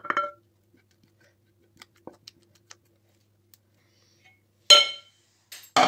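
Stainless steel pot and wooden spoon knocking together as thick molasses pudding is scraped out of the pot. There is a short ringing clink at the start, a few faint clicks, and a louder ringing metal clank near the end, followed by another knock.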